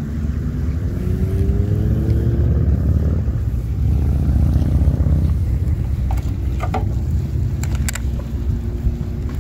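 A steady low rumble with an engine's hum rising in pitch during the first few seconds. Between about six and eight seconds in come a few sharp clicks as the plastic bait container is handled and opened.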